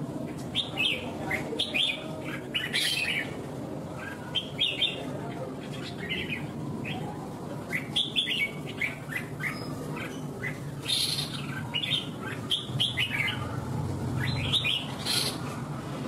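Caged red-whiskered bulbul singing a run of short, quick warbling phrases, one after another, the combative contest song ('hót đấu') of a fighting bulbul.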